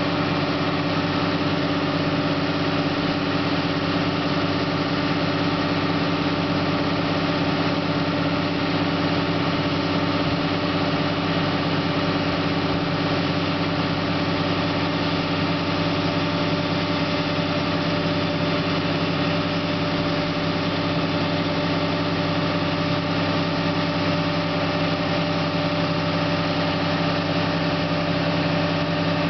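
Caterpillar 421D excavator's diesel engine running at a steady speed while the boom and bucket are slowly moved.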